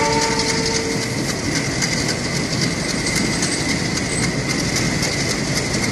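Steady running noise and rattle of a moving passenger train, heard at its open coach door, with a train horn's held note ending about a second in.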